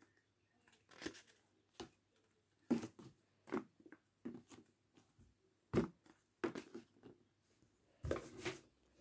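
Paper being handled close to the microphone: irregular short crinkles and rustles, with a longer, louder rustle about eight seconds in.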